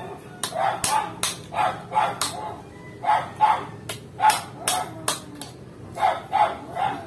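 A dog barking over and over in short groups of two or three, with a few sharp taps mixed in.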